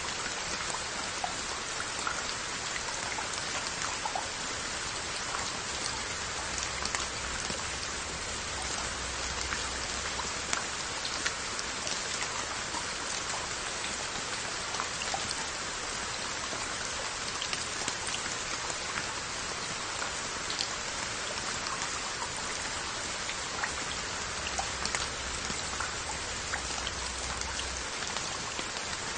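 Steady rain falling on Korean onggi earthenware crocks: an even hiss dotted with many separate drop ticks.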